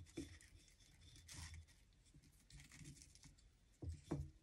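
Faint rustling of crinkled seam binding ribbon being wrapped and tied around the dowels of a wooden bow-making block, with a couple of soft knocks near the end.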